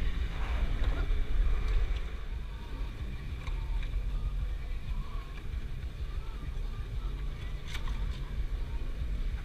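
Jeep Wrangler crawling slowly over a rough off-road trail, heard from inside the cab: a steady low rumble of engine and drivetrain, with two sharp knocks about three and a half and eight seconds in.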